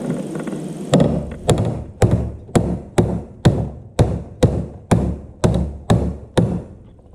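A dozen evenly spaced knocks, about two a second, each sharp and dying away quickly.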